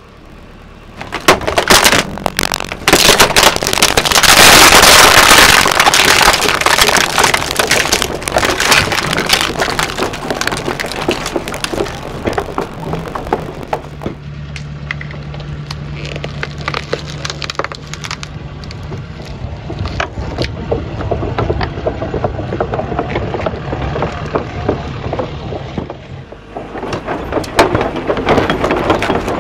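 Rubber track of a JCB mini excavator rolling onto and crushing an electric leaf blower, its plastic casing cracking and splintering loudest a few seconds in. Later, concrete blocks crack and crunch under the track while the machine's engine hums steadily beneath.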